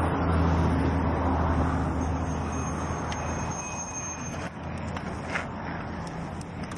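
Road traffic: a motor vehicle's engine and tyre hum passing on the adjacent road, loudest at first and fading away, with a few faint clicks.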